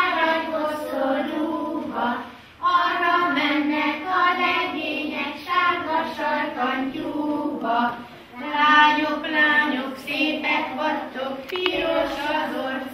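A group of young children singing a circle-game song together in unison, with short breaths between phrases.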